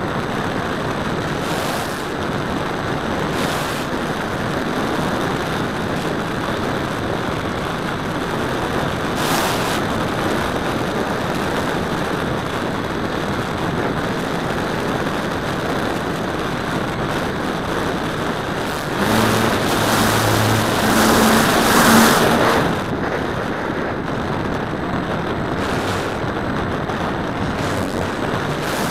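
Steady rush of wind and propeller noise on a radio-controlled model airplane's onboard camera in low flight. For about four seconds near two-thirds of the way through it swells louder, with a low hum underneath.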